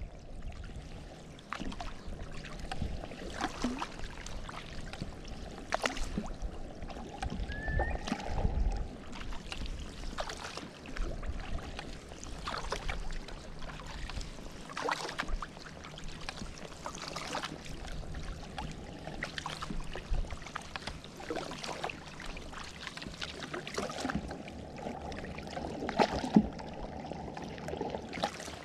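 Kayak paddle strokes through calm sea water: the blades dip and pull with irregular splashes and drips roughly every second or so.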